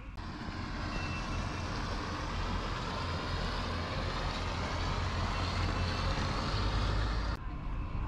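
Motorboat engine on the river: a steady engine rumble with a rushing hiss that grows slowly louder, then cuts off abruptly near the end.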